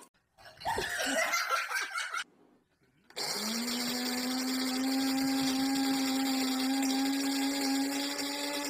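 A loud, rough burst of noise lasting under two seconds. Then, about three seconds in, a small electric motor starts up, its whine rising briefly before settling into a steady hum with a hiss above it, like a running household appliance.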